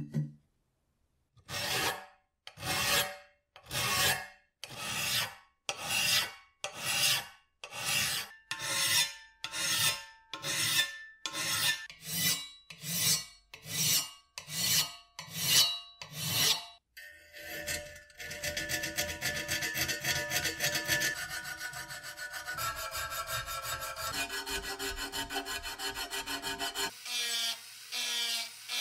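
A hand file rasping across the edge of a metal part, about seventeen strokes a little under a second apart that quicken slightly. Then, after about 17 s, a small handheld rotary tool with a sanding drum runs steadily, grinding the metal, its pitch shifting a couple of times.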